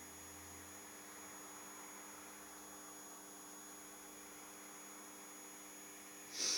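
Faint steady electrical hum and hiss of the recording, with a short breathy hiss near the end.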